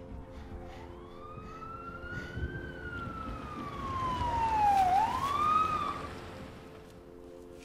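Police car siren wailing: one slow rise and fall in pitch, then a quick swoop back up that cuts off about six seconds in.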